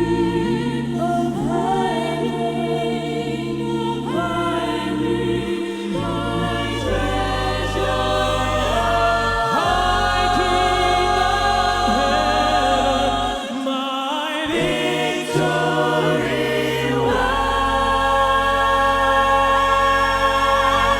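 Vocal ensemble singing held chords with vibrato over long, low sustained bass notes that change every few seconds.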